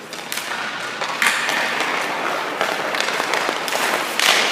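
Hockey goalie's skate blades scraping across the ice in several short hissing strokes as he pushes and shuffles along the crease, with a few faint knocks.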